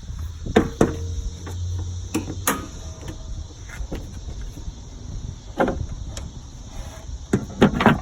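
Several sharp knocks and clunks over a low, steady rumble: the loudest about half a second in and near the end.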